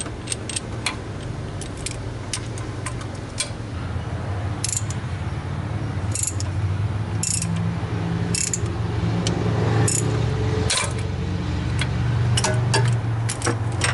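Hand ratchet turning the forcing screw of a Chrysler-style harmonic balancer puller: sharp metallic ratchet clicks, coming in clusters about once a second on each return stroke, over a steady low hum.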